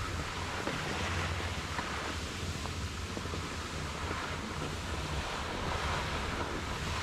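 Wind buffeting an action camera's microphone while skiing, a steady low rumble, over the rising and falling hiss of skis sliding on packed snow.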